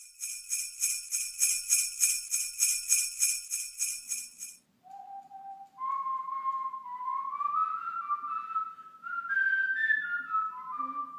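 Jingle bells shaken in an even rhythm, about three to four shakes a second, stopping after about four and a half seconds. Then a man whistles a short tune of stepped notes that climbs and falls back.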